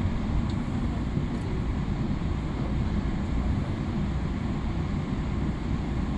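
Steady low rumble inside the cabin of a Boeing 777-300ER, the noise of its engines and airflow heard through the fuselage.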